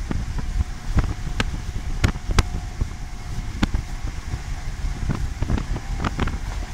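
Steady low rumble inside a Great Western Railway HST's Mark 3 passenger coach running at speed, with sharp irregular clicks and clunks from the wheels on the track, several close together about two seconds in and again near the end.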